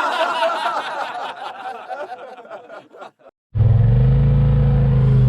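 People laughing, the laughter trailing off over about three seconds. After a short silent break, a vehicle engine cuts in abruptly and runs steadily and loudly.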